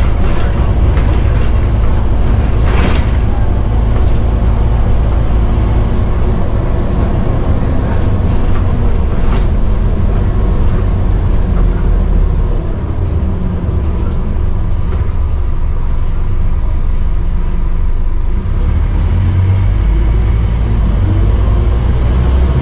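Inside a Scania OmniCity double-decker bus on the move: the Scania N230UD chassis's five-cylinder diesel engine running with a steady low rumble, mixed with interior rattles and a couple of short knocks. The rumble eases briefly about halfway through and grows stronger near the end.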